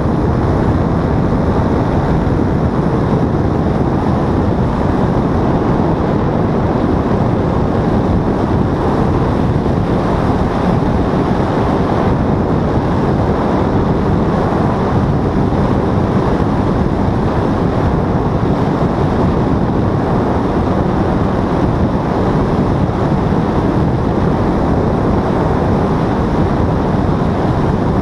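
Paramotor engine and propeller running steadily in flight, a constant drone under heavy wind noise on the microphone.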